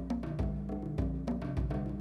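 Intro music with a steady beat of deep drum hits, about two a second, under sharp percussion strikes and pitched notes.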